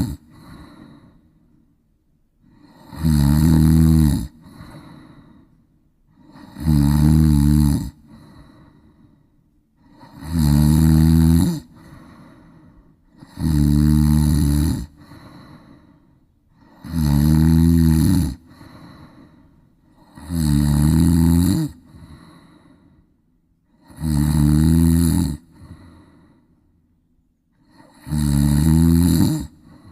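A cat snoring in deep sleep: a loud snore about every three and a half seconds, each followed by a softer breath.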